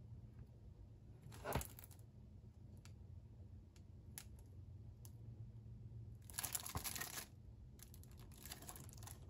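Shrink-wrapped plastic Blu-ray case handled and turned over: a short handling noise about a second and a half in as it is lifted, a few light clicks, then the cellophane wrap crinkling in two spells in the second half.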